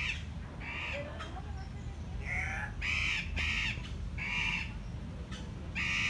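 Andean cock-of-the-rock giving a series of short, harsh squawking calls, about half a dozen, spaced roughly half a second to a second apart.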